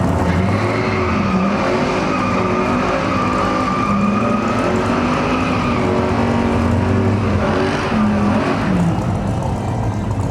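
Big-block V8 muscle car held at high revs with its tyres squealing, as in a burnout: the engine note wavers while a high squeal rises slowly over several seconds.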